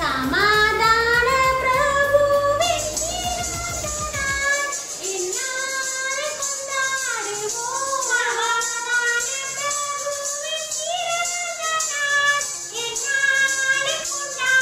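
A song with a high singing voice over backing music; the low part of the backing drops out about four and a half seconds in.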